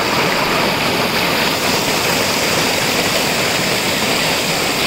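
River water rushing over rocks in white-water rapids: a loud, steady rush, heard close to the water.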